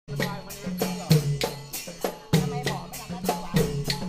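Procession drum music: drums beating a steady rhythm of about three strokes a second.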